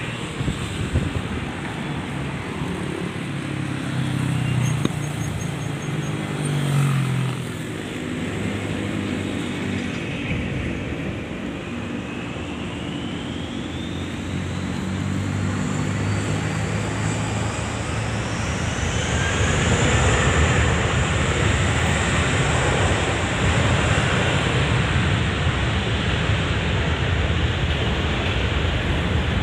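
Jet aircraft engines spooling up: a thin whine climbs steadily in pitch for about ten seconds, then gives way to a louder, steady roar that holds for the last third. Lower road-vehicle engine noise runs underneath, most plainly in the first half.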